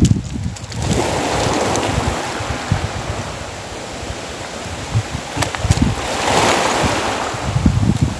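Small sea waves washing onto a rocky shore, swelling twice: about a second in and again about two-thirds of the way through. Wind rumbles on the microphone underneath.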